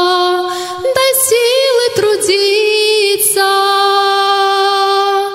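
A woman singing a Russian hymn solo into a microphone. She holds a long note, sings a short moving phrase with vibrato, then settles into another long held note.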